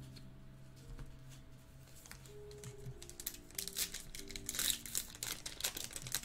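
The foil wrapper of a baseball card pack being torn open and crinkled, the crinkling starting about halfway through and growing louder toward the end. Faint background music plays under it.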